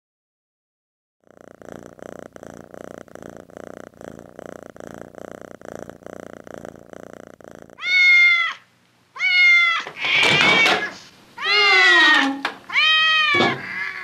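A layered sound-effect mix: after a second of silence, a microwave oven runs with a steady pulsing hum. About eight seconds in, a cat starts meowing loudly, five drawn-out calls falling in pitch, the later ones more frantic.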